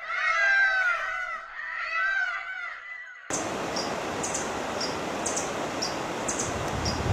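An animal's pitched calls, each rising then falling, for about three seconds. Then an abrupt cut to a steady hiss with short high chirps about every half second.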